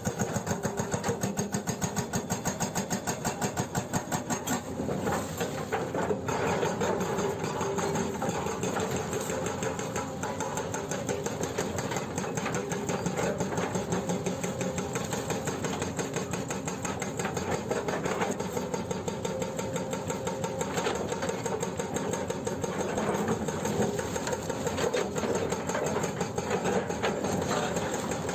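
Excavator-mounted hydraulic breaker hammering in rapid, steady blows, with the Hyundai 210LC-7 excavator's engine running under it.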